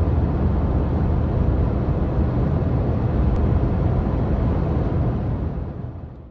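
An engine running steadily and loudly, faded in at the start and faded out near the end.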